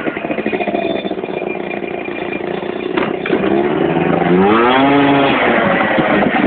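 Peugeot TKR 50cc two-stroke scooter engine with a Conti CHR3 expansion exhaust and a 17.5 mm carburettor, running steadily, then revved once about four seconds in, its pitch rising and falling back.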